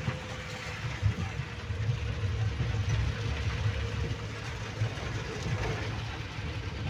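Inside a car driving in heavy rain: the engine's steady low hum under an even hiss of rain and tyres on the wet road.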